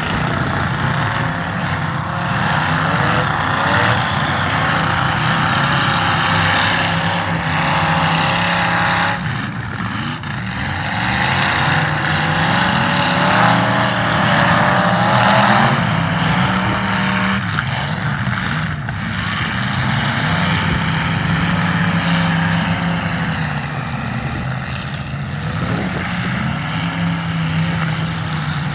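Demolition derby cars' engines running and revving hard, several at once, their pitch climbing and dropping again and again.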